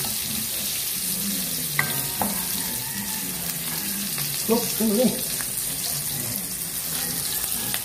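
Diced meat, crushed garlic and sliced red onion sizzling steadily as they sauté in hot oil in a wok, stirred with a wooden spatula, with a single tap of the utensil on the pan about two seconds in.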